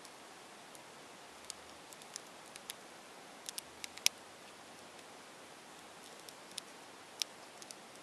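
Faint, irregular little clicks of a tiny 15 mm Maru Nano 3×3 puzzle cube as its layers are twisted, the loudest about four seconds in, over a steady hiss.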